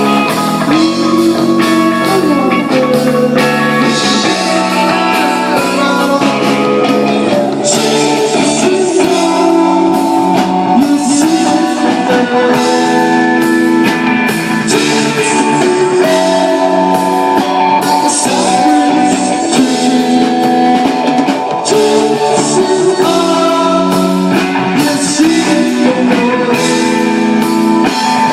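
Rock band playing live: electric guitars, bass and drums in a loud, unbroken passage with a steady drumbeat.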